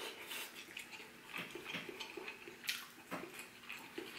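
A person chewing a mouthful of jollof rice close to the microphone: soft, wet mouth clicks at irregular intervals.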